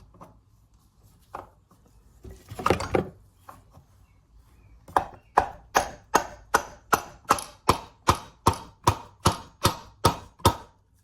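Piston being tapped down into the cylinder bore of a Honda GX200-clone engine block: a brief clatter, then an even run of about fifteen sharp knocks, some two and a half a second.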